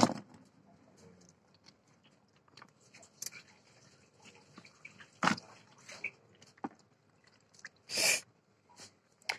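Hand shifting wet fish and ice cubes in a plastic cooler: scattered soft wet squelches, clicks and knocks, with two louder short sounds about five and eight seconds in.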